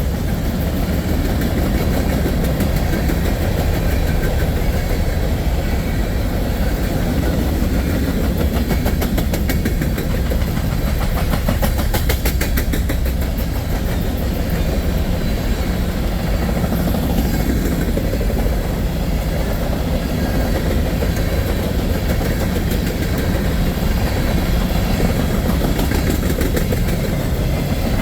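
Empty grain train's covered hopper cars rolling past, a steady rumble on the rails, with a run of wheel clicks around the middle.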